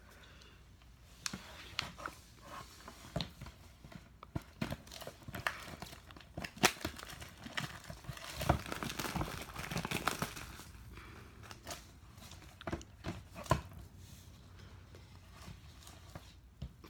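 Plastic shrink wrap being torn and crumpled off a sealed box: irregular crackling and rustling with sharp snaps, busiest in the middle.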